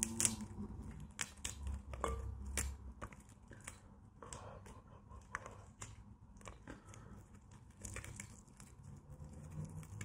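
Fingers breaking apart a piece of soft red fruit close to the microphone: irregular crisp crackles and small clicks with soft tearing.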